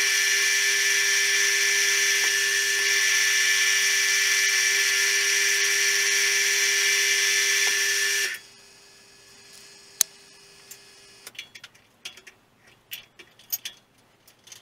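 Milling machine running with a steady high whine as a 12 mm four-fluted end mill cuts a slot in a metal T-nut blank; a little over eight seconds in the sound drops off sharply. A sharp click follows, then several light metallic clicks and knocks as the vise is handled.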